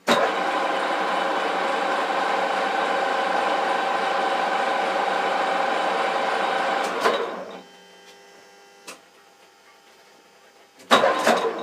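Metal lathe running in reverse at raised speed, its motor and gear train whining steadily with several tones while the leadscrew drives the carriage back along the thread being cut; it starts abruptly and stops after about seven seconds. A few clunks follow near the end.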